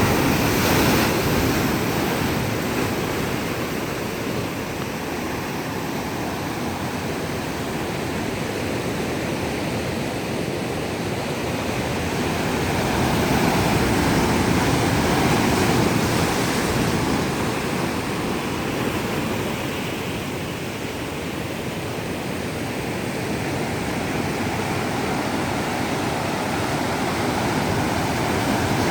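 Ocean surf breaking on the shore, a continuous wash that swells and eases slowly over many seconds, with some wind on the microphone.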